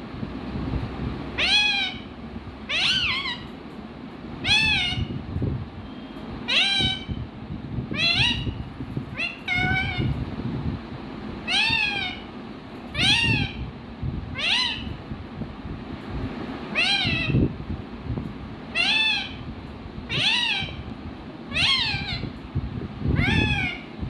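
Indian ringneck parakeet calling over and over: about fifteen short single calls, each rising then falling in pitch, spaced roughly a second and a half apart.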